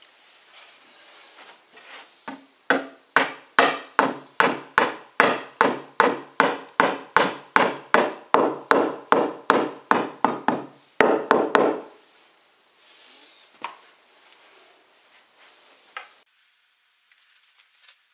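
Rubber mallet striking a particleboard shelf panel to seat it onto its wooden dowels: a steady run of knocks, about two to three a second for some nine seconds, ending in a quick flurry of blows.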